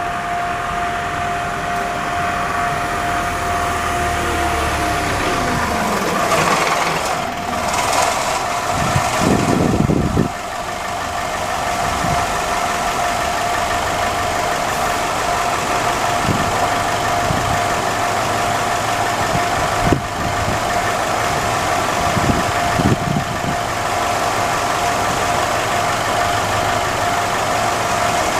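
Japanese level crossing's standard electronic warning bell ringing with a steady tone, over road vehicles idling and passing. A falling engine tone comes a few seconds in, and a vehicle passes loudly about nine to ten seconds in.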